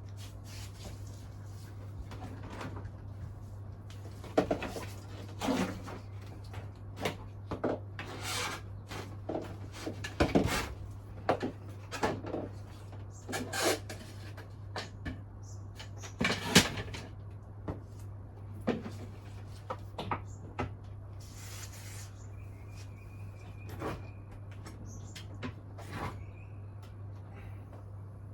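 Light stamped-steel ceiling fan with aluminium blades coasting down after being switched off. A steady low hum runs throughout, with scattered, irregular clicks and knocks.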